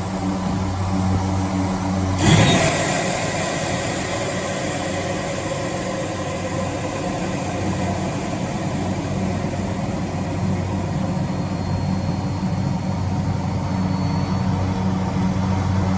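Garrett TPE331 turboprop engines of an SA227 Metroliner running steadily, and about two seconds in a sudden rush of air as the emergency cabin dump valve opens and the pressurized cabin loses its differential pressure; the rush fades within a second or so into a hiss under the steady engine drone.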